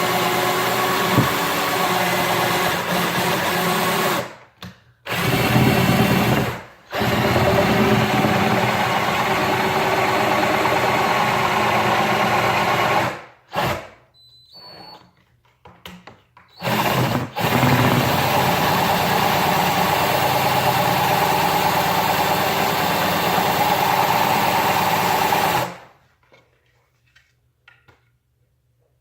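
Power drill running at a steady speed. The trigger is let off briefly a few times, there are several short bursts in the middle, and the drill cuts off for good a few seconds before the end.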